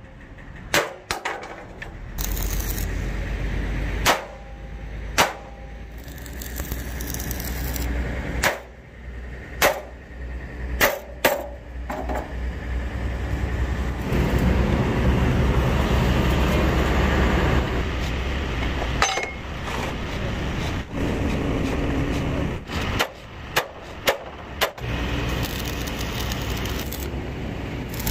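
Hammer blows on steel truck chassis rails: sharp metallic clangs at irregular intervals, with a stretch of steady noise between them midway through.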